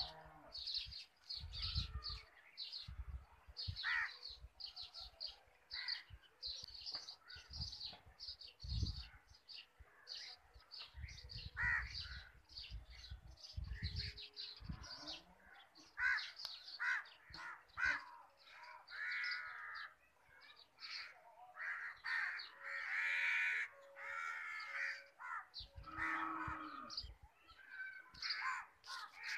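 Crows cawing repeatedly, mixed with dense, rapid high chirping from small birds. Low rumbling bumps come and go in the first half.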